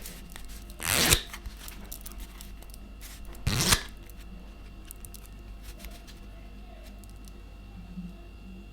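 A deck of playing cards riffle-shuffled twice: two quick rippling bursts of cards about two and a half seconds apart, with a sharp click just before them.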